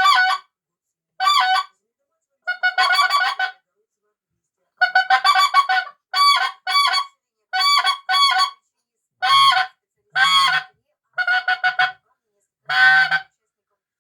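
Mouth-blown white-fronted goose call made by Dima Melnikov, blown in short bursts of clipped honks and quick runs of yelps, about ten groups with short pauses between them.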